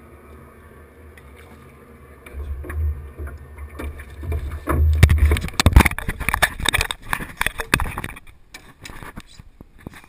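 A steady low rumble, then from about five seconds in a run of loud knocks and rattles as the GoPro camera is grabbed and handled on its mount. The knocks fade out over the last couple of seconds.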